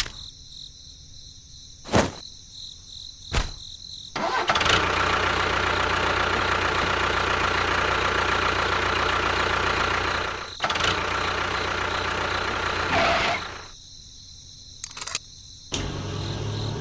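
A few sharp clicks, then a motor starts about four seconds in, runs steadily for about nine seconds and stops; it starts again near the end. Crickets chirp steadily in the quieter stretch at the start.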